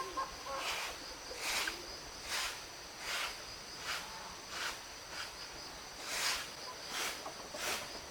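Insects chirring with a steady high drone, over about ten short rustling strokes that come roughly one every three-quarters of a second.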